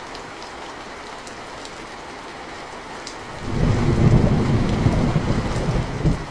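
Steady rain hiss, with a loud low rumble of thunder coming in about halfway through and cutting off abruptly near the end.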